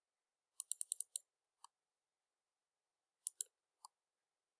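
Computer mouse clicking: a quick run of about six clicks about half a second in, a single click, then a pair of clicks and one more near the end.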